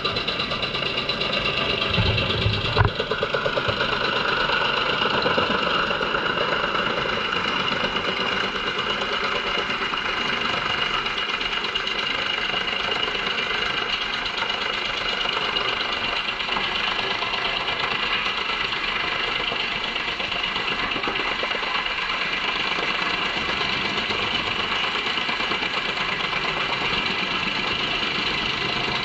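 JENZ HEM 593-R truck-mounted wood chipper running under load, chipping poplar trunks and blowing the chips out of its chute: a loud, steady machine drone. A couple of heavy knocks come about two to three seconds in.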